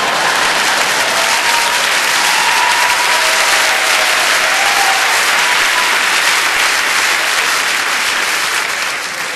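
Large theatre audience applauding steadily for a stand-up comedian, easing off slightly near the end.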